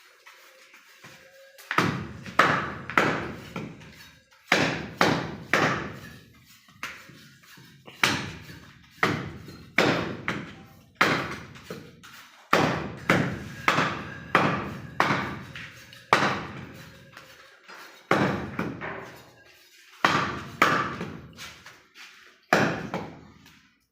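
Butcher's chopping blows cutting through goat leg meat and bone, a long series of heavy strikes, often in runs of two or three, each with a short ring. They start about two seconds in.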